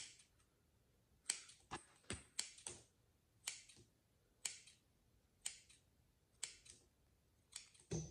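Scissors snipping through clear slime in crisp single cuts: several quick snips in the first few seconds, then about one a second. A duller knock comes near the end.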